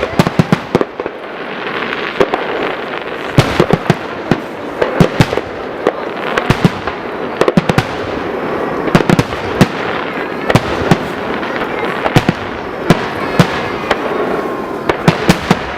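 Aerial fireworks going off: dozens of sharp bangs at uneven intervals, often several in quick succession, over a steady rushing background.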